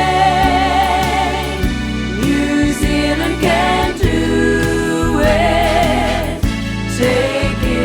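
Background song: long held sung notes with vibrato over an instrumental backing.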